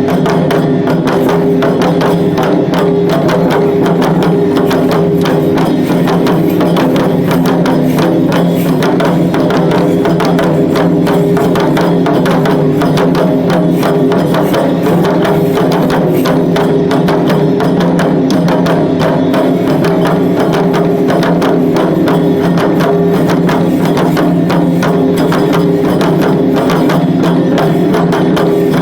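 Shishimai lion-dance accompaniment: drums struck in a fast, unbroken rhythm with sharp wooden clacks, over a steady low drone.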